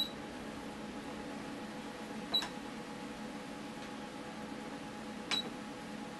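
Ultrasound machine controls being worked: three short clicks, each with a brief high beep, about two and a half to three seconds apart, over a steady low hum.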